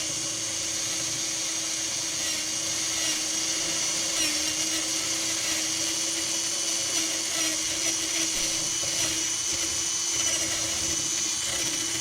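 Small electric motor running steadily with a high-pitched whine, like a power tool or drill, with a faint dip in pitch about four seconds in.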